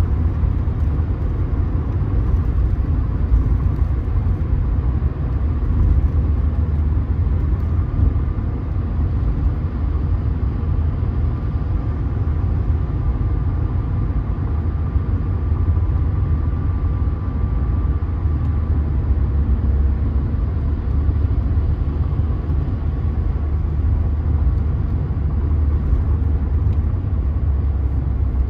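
Steady low road and tyre rumble with engine noise inside the cabin of a Mercedes-Benz car cruising on a motorway. A faint steady high whine sits on top of it for several seconds in the middle.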